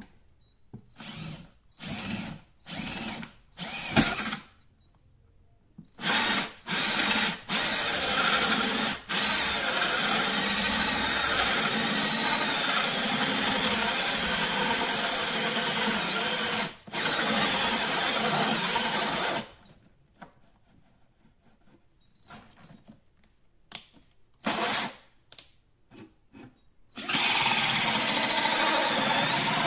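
Electric drill turning a hole saw that cuts into the wall of a PVC pipe. It starts with several short trigger bursts, then cuts steadily for about thirteen seconds with one brief stop, pauses with a few short bursts, and cuts steadily again near the end.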